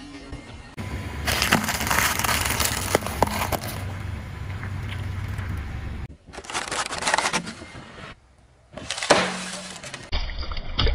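Car tyre rolling slowly over toothpaste tubes on asphalt, crushing them with several seconds of crackling and crunching. Then a foil balloon crinkling under the tyre, and a sudden burst about nine seconds in as the balloon splits.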